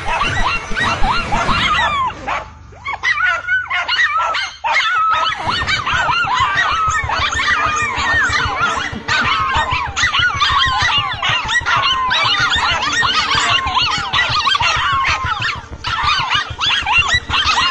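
Dogs yelping and yipping in a rapid, dense stream of short high-pitched cries, during a dog fight. The cries drop away briefly between about two and five seconds in.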